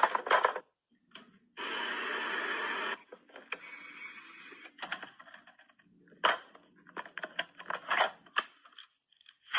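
Clicking and clacking of old mechanical devices and keys. There is a run of clicks at the start, a steady hiss lasting just over a second from about one and a half seconds in, a fainter whir, then a quick series of clicks toward the end.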